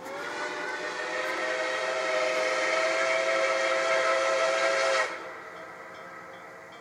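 Steam locomotive whistle blowing one long blast of about five seconds: several tones sounding together over a hiss of steam. The pitch slides up slightly as it opens, and the blast cuts off sharply.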